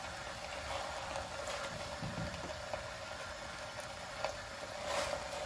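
Chicken and onions sizzling softly in a clay handi over a lit stove: a low, steady hiss with a few small crackles.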